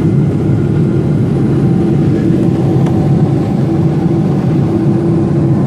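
Airliner's jet engines and the rush of air, heard inside the passenger cabin as a steady low drone during the climb after takeoff.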